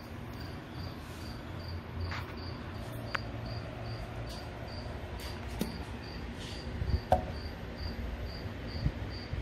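A cricket chirping steadily, about three high chirps a second, with a few light clicks and knocks, the sharpest about seven seconds in.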